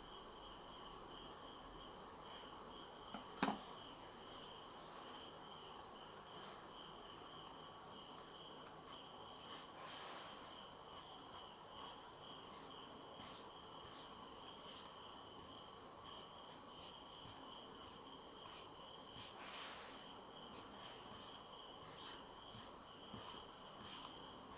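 Faint, steady insect chirring with a regular pulse, with one sharp click about three seconds in and light scattered ticks later on.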